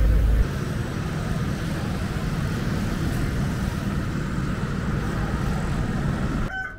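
Steady roar of an aircraft using the nearby airport runway, mixed with street noise, breaking off near the end as a rooster starts to crow.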